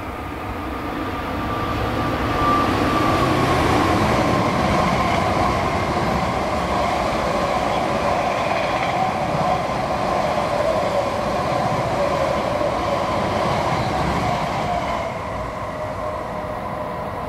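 Tokaido Shinkansen bullet train passing at about 110–160 km/h: a loud rushing sound that builds over the first couple of seconds, holds, then eases off about fifteen seconds in. A whine runs through it and slowly falls in pitch.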